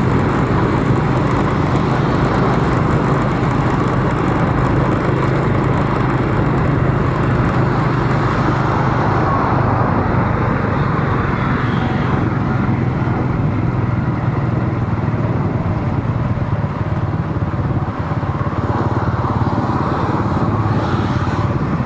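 A vehicle engine running steadily while driving, over a constant haze of road and street-traffic noise.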